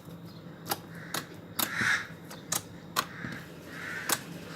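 Thick homemade clear slime being squeezed and worked by hand, making sharp crackling pops of trapped air about every half second, irregularly, with soft squishing in between.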